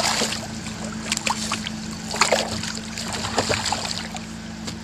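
Water splashing and lapping close to a boat, with scattered small splashes and drips, over a steady low hum.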